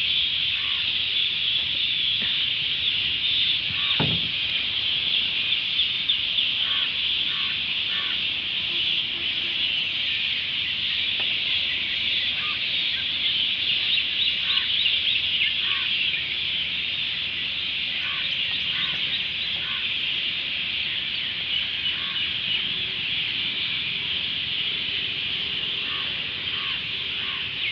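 Steady high-pitched insect chorus, with short calls every second or two and a single thud about four seconds in.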